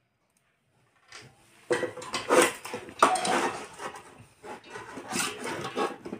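Small metal screws and nuts clattering and clicking as they are handled and taken apart by hand, dense from about two seconds in and cutting off suddenly at the end.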